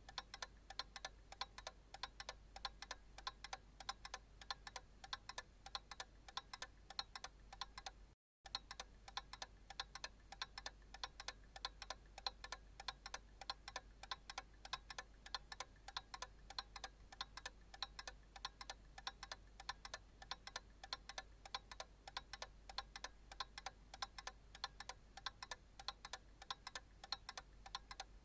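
Analog clock ticking steadily in an even, unbroken rhythm, with a faint low hum beneath. The sound cuts out completely for a split second about eight seconds in.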